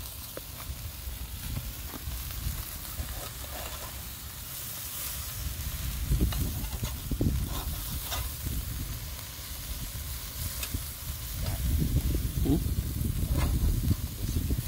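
Hamburger patties sizzling on a small round grill, with short scrapes and clicks of a metal spatula against the grate as they are worked, over an uneven low rumble.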